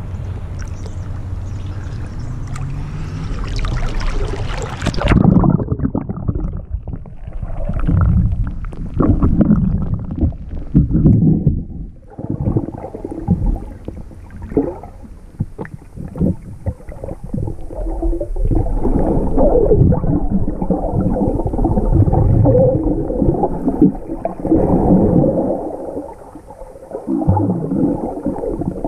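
Lake water splashing against a swimmer's camera at the surface, turning abruptly muffled about five seconds in as it goes under. After that come uneven low underwater sloshing and gurgling from the swimming strokes.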